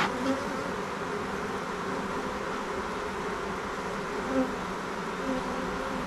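Honeybees buzzing as a steady hum around an open hive, with a brief louder buzz about four seconds in.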